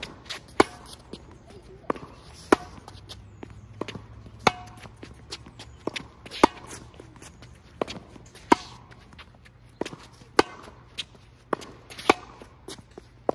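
Tennis volley rally: a ball struck back and forth by rackets about once a second, sharp pocks, the near player's hits louder and alternating with fainter hits from across the net. Light footsteps on the hard court fall between the hits.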